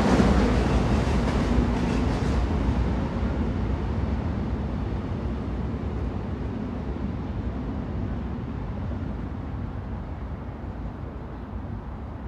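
Train running on the rails, a low rumbling rush that fades steadily and loses its treble over several seconds.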